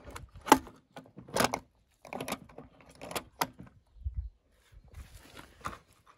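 Die-cast toy cars being handled on a wooden ramp: a string of sharp clicks and clacks, loudest about half a second in, then a dull thud and a softer scraping rustle near the end.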